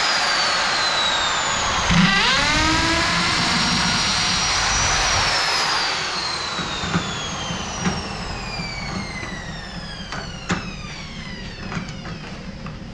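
Corded electric drill boring into an aluminum screen door frame. It spins up again about two seconds in with a rising whine, then its pitch slowly falls and it grows quieter after about six seconds, with a few light clicks near the end.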